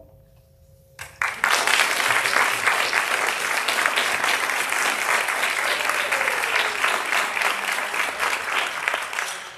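Audience applauding, starting suddenly about a second in and dying down near the end.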